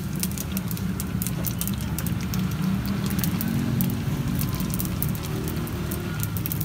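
Cireng (tapioca fritters) deep-frying in hot oil in a stainless electric fryer: a steady sizzle with a rapid patter of small pops and crackles, over a steady low rumble.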